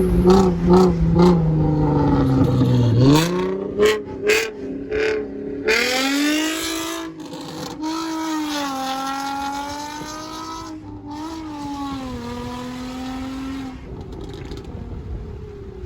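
Nissan 350Z's V6 engine revving hard, its pitch repeatedly dropping and climbing again, with a run of sharp cracks in the first few seconds. It grows fainter toward the end.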